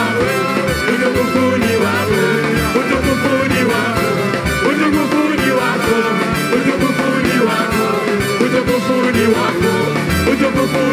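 Choir singing a gospel song over instrumental backing with a steady beat.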